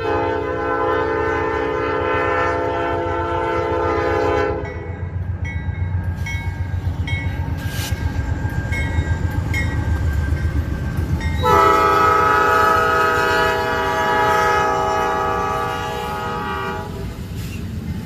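Norfolk Southern diesel freight locomotive's air horn sounding a multi-note chord twice as the train passes a grade crossing: a long blast at the start, then a second long blast about seven seconds later. The low rumble of the passing diesel locomotives runs underneath throughout.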